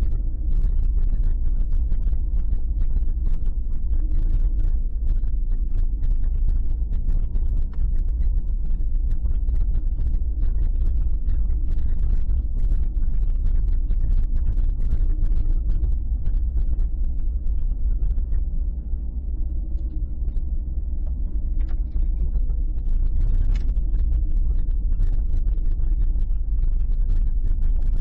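Car driving at low speed, heard from inside the cabin: a steady low rumble of engine and road noise, with scattered faint ticks and rattles.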